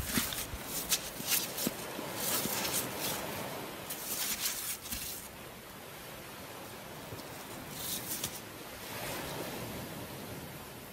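A hand shifting a catch of wet sea bass and grey mullet in a container: bursts of rustling and scraping through the first five seconds and again around eight seconds, over a steady hiss.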